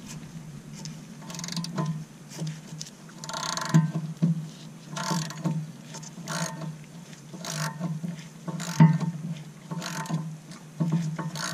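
Hand socket ratchet clicking in short bursts, about one every second or so, as it backs off the upper nut of a sway bar end link while a wrench holds the stud.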